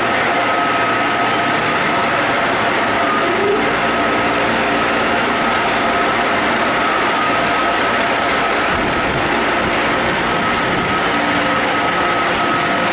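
Mark VII ChoiceWash XT rollover car wash machine running: a loud, even rush of machinery with a steady high whine over it.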